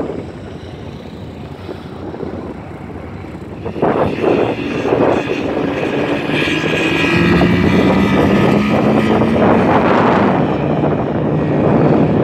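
A Jeep Cherokee and a side-by-side UTV running at the start of a sand drag race. The engines turn suddenly loud about four seconds in as they rev and launch, and the pitch climbs steadily as they accelerate down the sand strip.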